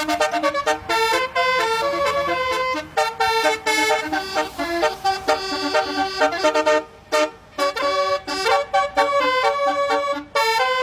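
Indonesian basuri 'telolet' bus horn playing a fast melody of short, stepping notes, with a brief break about seven seconds in.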